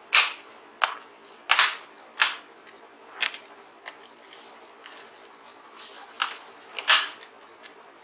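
Plastic palmrest of a Dell Inspiron 15z laptop being pressed down onto the base, its clips snapping into place in a string of sharp, irregular clicks, the loudest about a second and a half in, two seconds in and near seven seconds.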